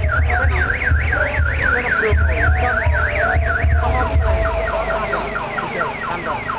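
Multi-tone electronic alarm siren: a fast up-and-down warble about four times a second, switching a little past halfway to rapid repeated falling chirps. Irregular low thumping runs under the warble part.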